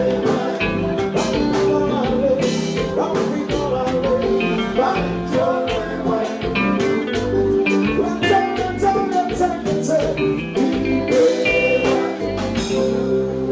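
Live Haitian konpa band music: a male lead singer sings over the amplified band, with guitar and a steady drum beat.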